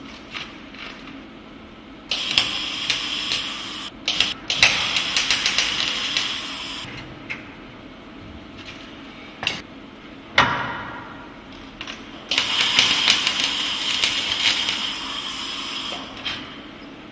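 MIG welder plug-welding a car body panel through drilled holes: three spells of crackling welding, each two to four seconds long, with a few single sharp crackles between them over a steady low hum.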